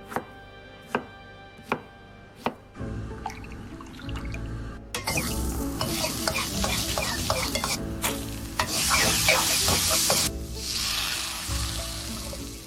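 Mapo tofu being cooked in a pan: four sharp knocks in the first few seconds, then frying, loud sizzling from about five seconds in with stirring, over background music.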